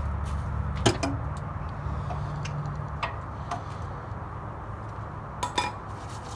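Sharp metallic clinks and knocks from hands and metal parts while a sticking oil filter is worked onto its mount, the loudest about a second in and a quick pair near the end, over a steady low hum.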